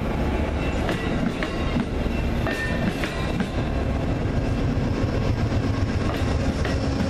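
Amtrak Amfleet passenger coaches passing close by at speed: a steady rumble of steel wheels on the rails, with a few sharp clicks as wheels cross rail joints about a second to three seconds in.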